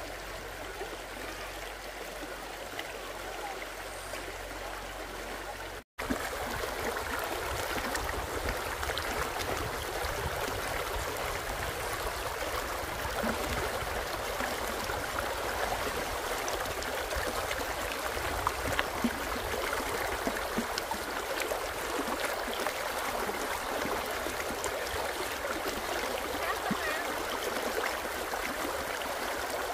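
Water running in a stream, a steady rush. About six seconds in it cuts out for a moment and returns louder.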